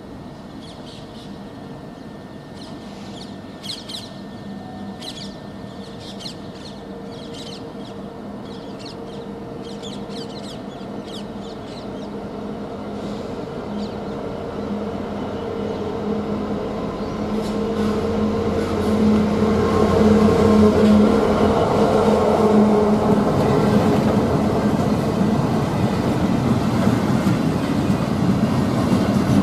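Diesel locomotive approaching and passing at the head of a loaded freight train of MHA box wagons. Its engine note grows steadily louder over the first two-thirds and is loudest from about eighteen seconds in, as the locomotive goes by. The rumble of the wagons follows it.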